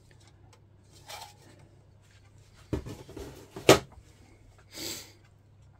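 Handling noises from the large one-piece plastic deck moulding of a model kit being lifted off a cutting mat and moved: a soft rub about a second in, then two knocks of hard plastic, the second one the loudest, and a brief rustle near the end.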